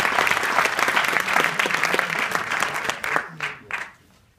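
Theatre audience applauding, the clapping thinning out about three seconds in to a few last claps.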